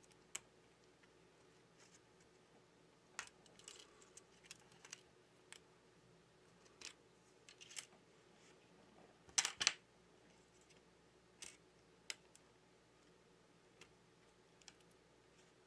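Faint, scattered small clicks and taps of hands handling the parts of an opened smartphone as its main flex cable is unclipped, lifted out and laid down, with a louder cluster of clicks about nine and a half seconds in.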